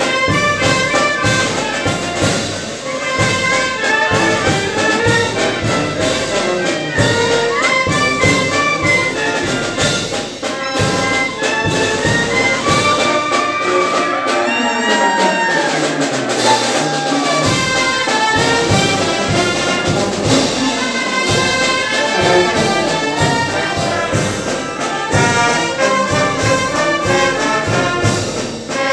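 Brass band with trumpets and trombones playing a dance tune over a steady beat.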